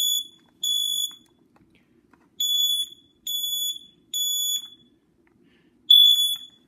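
Kidde Fyrnetics 1275 smoke alarm's piezo horn sounding its evacuation pattern. It gives high beeps in groups of three, with a pause of about a second and a half between groups. The owner says this piezo horn is failing and needs replacing.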